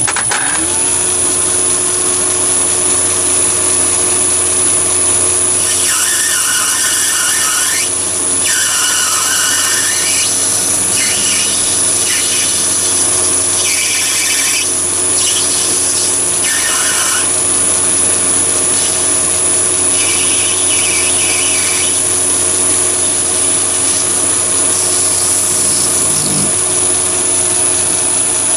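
Mini lathe starting up and running at a steady speed with a constant high motor whine, while a grooving tool cuts a thread undercut in brass bar stock. The cutting comes in several bursts of high, rough noise, mostly in the first half and again twice near the end.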